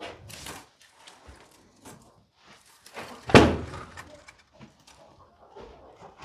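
Knocks and thuds as a large divider panel is carried and handled, with one loud thud a little over three seconds in.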